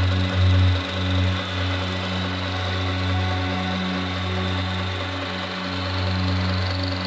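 Milling machine running steadily as its end mill cuts a lost-wax steel casting: a constant motor hum with a hiss of cutting over it.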